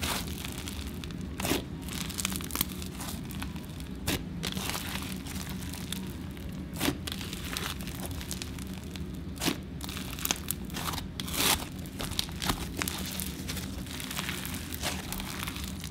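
Thick black glitter slime being squeezed, kneaded and pulled apart by hand, giving off irregular sharp crackles and pops over a steady low hum.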